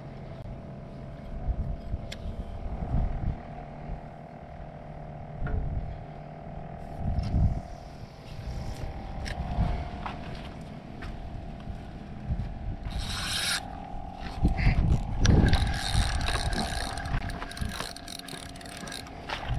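Spinning reel and rod being handled and cranked, busier toward the end, with gusts of wind on the microphone and a steady engine drone underneath.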